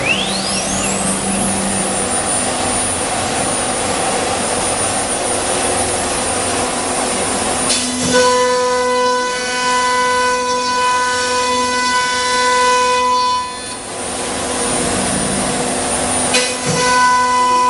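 ATC wood CNC router machining an MDF panel: a rough, rasping cutting noise with a whine rising quickly in pitch at the start. About eight seconds in, a steady, strong multi-tone machine whine takes over, cutting out briefly a few seconds later and coming back near the end.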